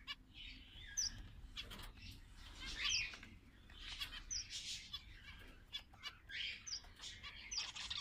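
Fischer's lovebirds chirping: a scatter of short, high chirps and scratchy calls at irregular intervals.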